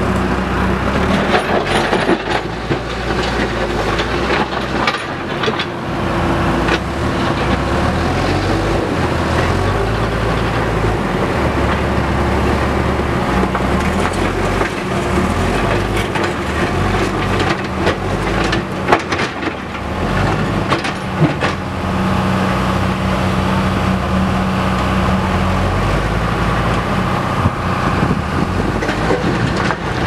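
Tata backhoe loader's diesel engine running under load as the machine drives forward pushing earth with its front bucket, the engine note shifting up and down as it works. Scattered knocks and clanks are heard over it.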